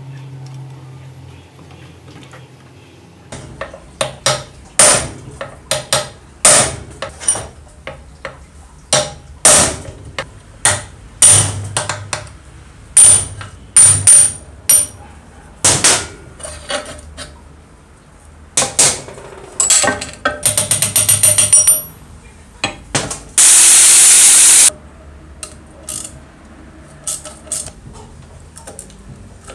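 Hammer blows on the steel parts of an old metal-cutting saw during disassembly: sharp metallic strikes at about one a second, then a quick rattle of light taps. A brief steady hiss comes about two thirds of the way through, and a few faint metal clicks follow near the end.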